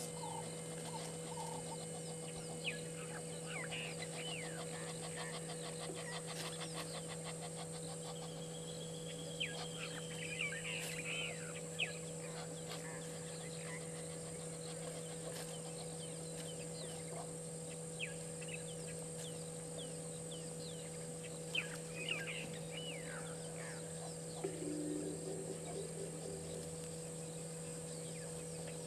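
Outdoor bush ambience: scattered short bird calls and chirps, including a whistled phrase about nine seconds in, over a steady high-pitched insect drone and a low steady hum.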